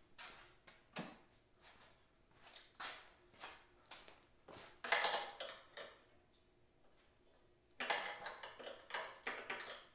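Metal wrenches clinking and rattling as different sizes are tried on a nut: a string of light clinks and knocks, busier about five seconds in and again near the end.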